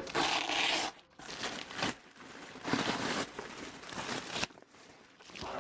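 Rustling and crinkling of material being handled, in several irregular bursts of a second or two each.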